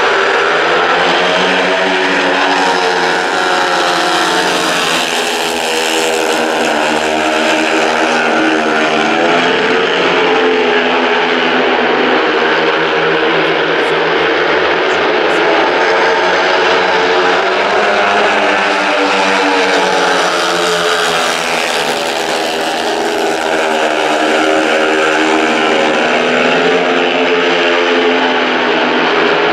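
Several speedway bikes with 500 cc single-cylinder engines racing together, loud throughout. The engines rise and fall in pitch again and again as the riders go round the track.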